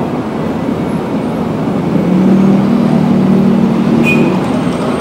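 Busy city road traffic: a steady wash of vehicles running past. A low steady hum joins about two seconds in and fades out about a second before the end, with a brief high chirp about four seconds in.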